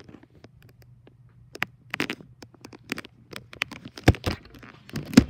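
Pink slime being squished and poked, giving irregular small clicks and squelches, with two louder knocks near the end.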